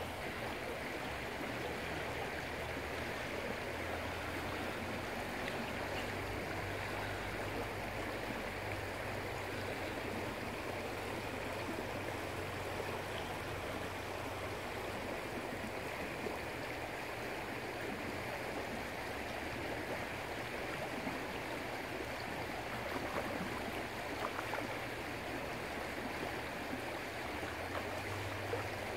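Shallow creek running fast over rocks in a riffle: a steady rush and babble of water.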